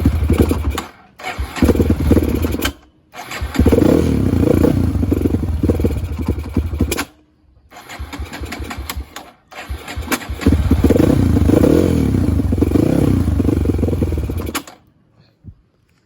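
Single-cylinder engine of a modified Kawasaki KLX150 motorcycle, electric-started and run, revving up and down in several short stretches broken by sudden gaps, then stopping near the end. It runs smoothly, a sign that the electric start and rebuilt engine are working.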